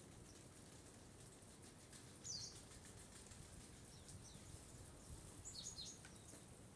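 Faint, brief high-pitched bird chirps, one about two seconds in and a quick cluster near the end, over a low steady background rumble.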